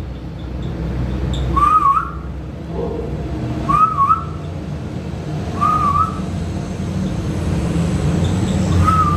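Cockatiel whistling a short wavy phrase, a dip then a rise, four times about two seconds apart, imitating its owner's whistle.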